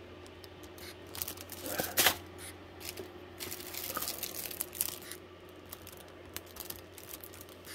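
Clear plastic packaging bags crinkling and rustling as plastic model-kit sprues are handled, in scattered short crackles with a sharper one about two seconds in and a busier stretch of rustling near the middle.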